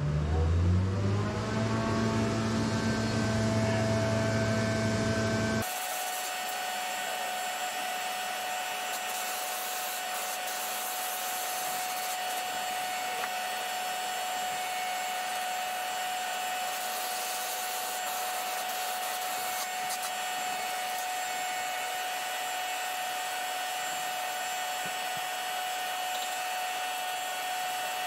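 A machine's motor spins up, its pitch rising for about two seconds and then holding over a low rumble. A few seconds in this changes abruptly to a different steady mechanical whine with a hiss, which runs on unchanged.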